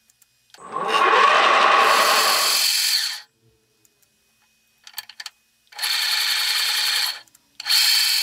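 Geared-head drill press with a three-phase 1.5 hp motor, switched on and off three times. Its motor and gearbox run with a steady whine each time. The first run lasts about two and a half seconds; after a few switch clicks come two shorter runs with a higher whine.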